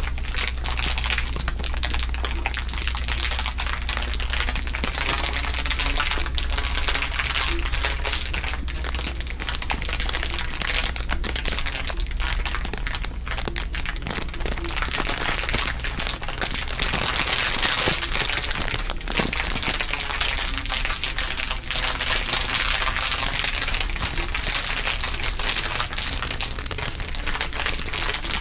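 Layered ASMR crinkling: several crinkle tracks laid over one another into a dense, continuous crackle of tiny clicks, with an effect sweeping through it at times.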